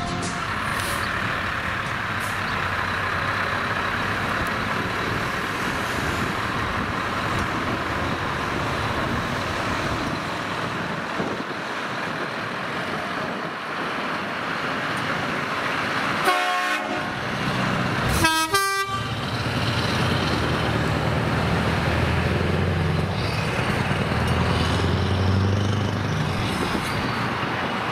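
Scania R500 V8 diesel truck with an open exhaust pipe running as it drives past, with two short horn blasts about two-thirds of the way through, after which the low engine note grows louder as it pulls away.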